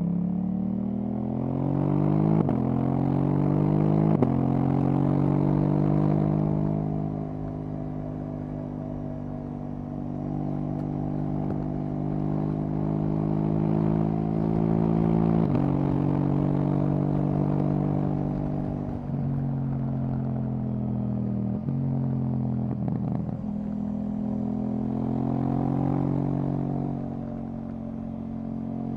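KTM 790 Duke's parallel-twin engine through an Akrapovic exhaust, pulling up through the gears with two quick upshifts in the first few seconds, then cruising steadily. Later the revs drop for a few downshifts and climb again in another short pull.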